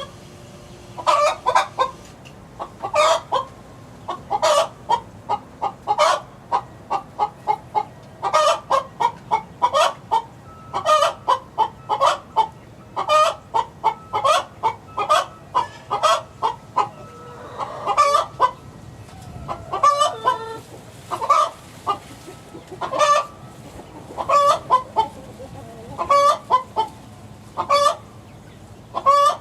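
Young six-week-old chickens calling over and over: short, sharp cheeps and clucks, a few every second, one after another.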